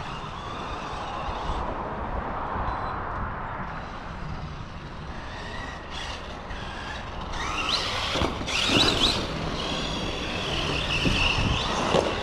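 Arrma Big Rock electric RC monster truck driving over a dirt track, its motor whining up and down in pitch as it accelerates, loudest in a run about eight to nine seconds in and again near the end.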